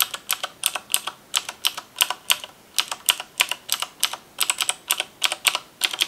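Typing on a Corsair K70 full-size mechanical keyboard with clicky Cherry MX Blue switches: a steady run of sharp keystroke clicks, about four or five a second. The board is held up off the table, not resting on a desk.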